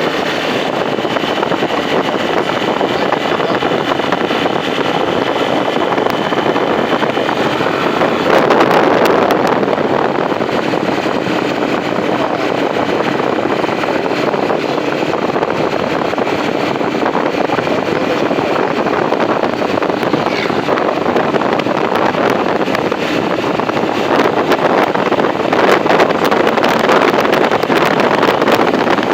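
Loud, steady wind noise rushing over the microphone of a rider on a moving motorcycle, swelling about eight seconds in and again near the end.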